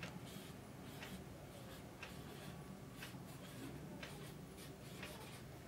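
Faint marker pen writing on a whiteboard: light ticks and strokes of the felt tip against the board, scattered about a second apart.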